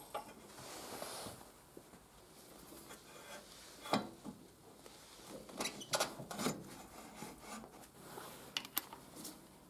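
BMW R100S rear axle being pushed and worked through the wheel hub and swingarm, a faint scraping with a few light metallic clicks, one about four seconds in and several more in the second half.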